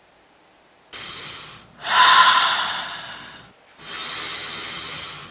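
Heavy breathing sound effect instead of the expected music: about a second of silence, then three loud rushes of breath, the first short and the next two longer, each fading.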